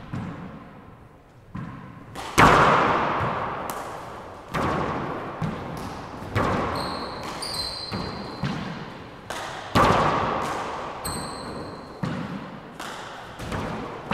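Four-wall handball rally: a string of sharp smacks, roughly one a second, as the rubber ball is struck by gloved hands and hits the walls and floor, each ringing out in the echoing court. The loudest come about two and a half seconds in and near ten seconds. High shoe squeaks on the hardwood floor come midway and again about eleven seconds in.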